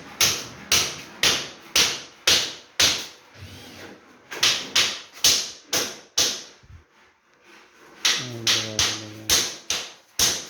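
Hammering on a work site: sharp blows about two a second, stopping for a second or so past the middle, then starting again.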